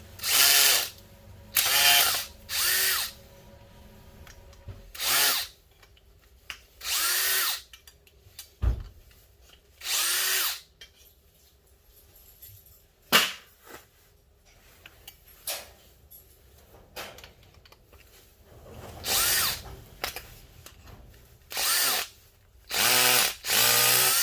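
Power drill running in short bursts of about a second, its pitch bending as the motor spins up and slows, about nine times with a long pause in the middle. A single low knock about nine seconds in.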